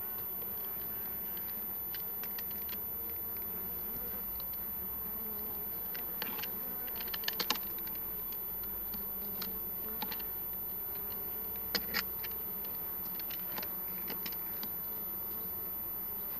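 Honeybees buzzing steadily around an open hive. Scattered sharp clicks and knocks come from the hive work, with a quick cluster about seven seconds in and two louder knocks near twelve seconds.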